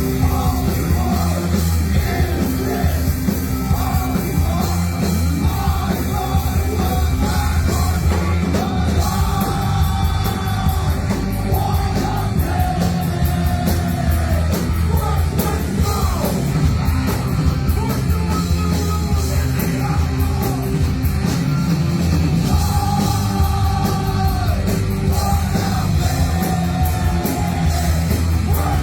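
Live heavy punk-metal band playing loudly, with yelled and sung vocals over distorted guitars, bass and drums. Cymbal hits grow denser about a third of the way in.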